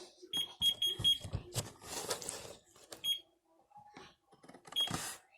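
Slime being squished and kneaded by hand, with sharp clicks and crackles, mixed with short high beeps: four in quick succession about half a second in, then single ones about three and five seconds in.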